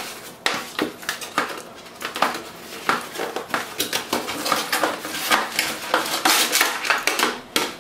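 A moulded packaging tray being handled while a gaming mouse and its cord are worked free of it by hand: a dense, irregular run of clicks, taps and scrapes.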